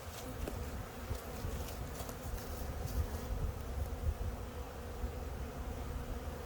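Honeybees buzzing steadily around an open hive, with a low rumble underneath.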